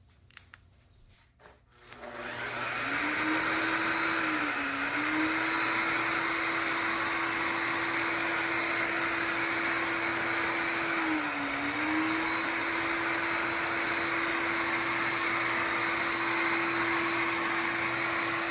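Shark HydroVac MessMaster wet-dry vacuum mop switching on about two seconds in and running steadily while it scrubs spots off the floor, its motor hum dipping in pitch briefly twice.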